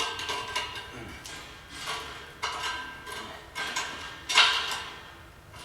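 Steel clanking and ringing, half a dozen knocks with the loudest near the end, as a welder's ground clamp is hooked onto the steel frame.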